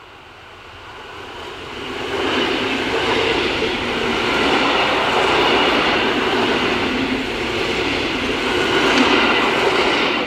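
Electric multiple unit train passing close by. It grows loud about two seconds in, stays loud while the cars go past, and fades quickly near the end.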